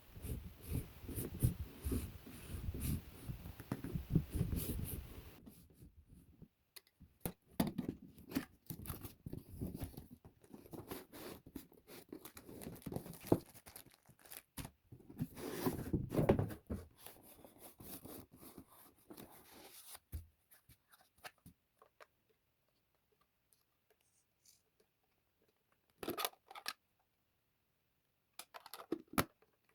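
Packaging being handled and torn open by hand: irregular rustling, tearing and clicks that die away about twenty seconds in, with two short bursts of handling near the end.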